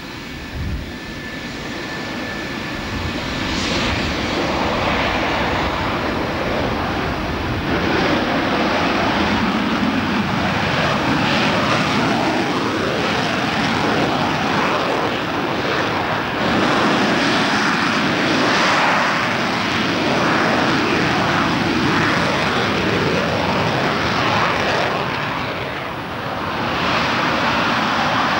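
F-4F Phantom II jet engines (twin J79 turbojets) at takeoff power with afterburner: loud, ragged jet noise that builds over the first several seconds, stays loud, and dips briefly near the end before rising again.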